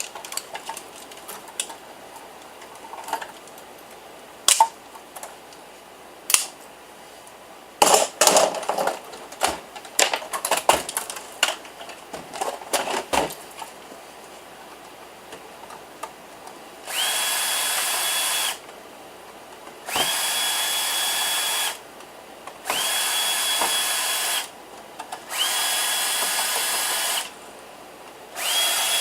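Scattered clicks and knocks of computer parts being handled, then an electric drill-driver running in five short bursts of about two seconds each, with a steady whine, as screws are backed out of the PC tower.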